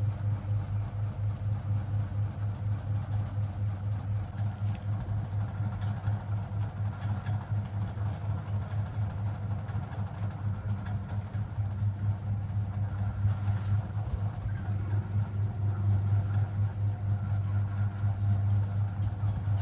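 A cat purring: a steady low rumble with a fast pulsing flutter, swelling and easing in an even rhythm.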